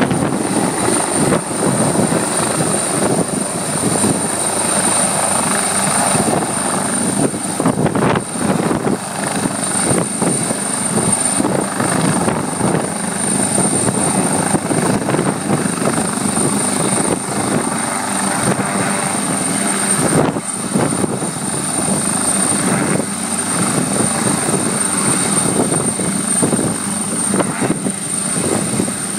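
Fire and disaster-prevention helicopter hovering low with a slung water bucket: continuous loud rotor and engine noise with a rapid flutter, over a steady high whine.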